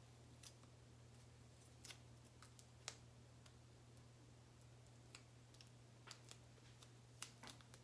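Near silence over a steady low hum, with faint, scattered light clicks and ticks of small craft decorations being handled and fitted onto a wooden tree.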